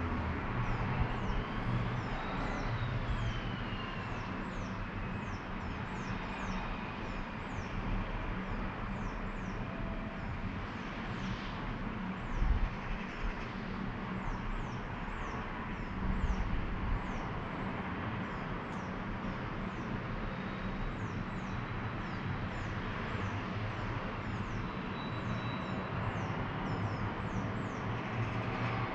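Outdoor town ambience: a steady low hum of distant road traffic, with wind buffeting the microphone in gusts. Quick high chirps repeat about twice a second throughout, and a passing vehicle's whine rises and falls in the first few seconds.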